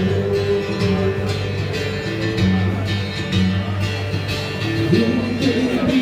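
Live music: a singer accompanying himself on guitar, with a sung melody over steady strummed chords.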